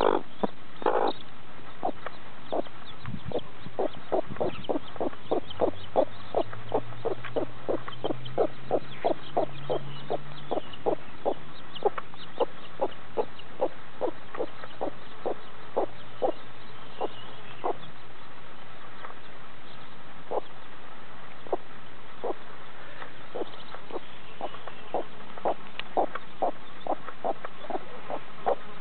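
Mother hen clucking to her chicks: a long run of short, low clucks, about three a second at first, then more spaced out in the second half.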